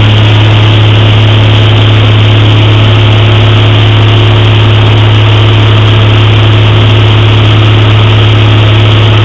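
Cabin drone of a small high-wing light aircraft in flight: its engine and propeller run at a steady cruise, a loud, unbroken low hum with rushing noise over it.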